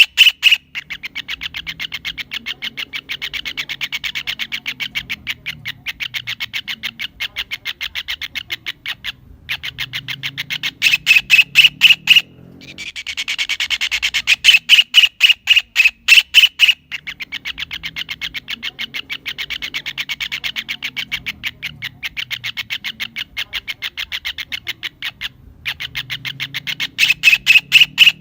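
Kingfisher (tengkek udang / cekakak) calling: long runs of rapid, evenly spaced notes, louder in stretches about a third of the way in, around the middle and near the end, with short breaks between runs.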